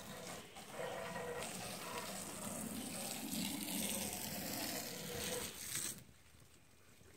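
Rustling and scuffing of a handheld camera being carried quickly through leafy bushes over mulch, stopping abruptly about six seconds in.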